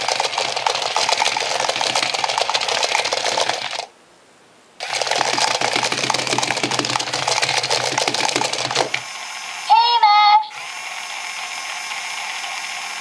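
Battery motor and plastic gears of a Spin Master Walking Talking Pets Gidget toy whirring and clattering as it walks, in two runs of about four seconds with a short pause between. Near the end a brief high squeak that glides up and down, then the motor settles into a steadier, softer hum.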